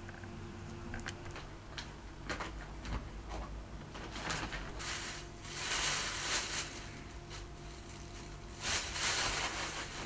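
Handling noise: a few light clicks, then two bursts of rustling, over a low steady hum.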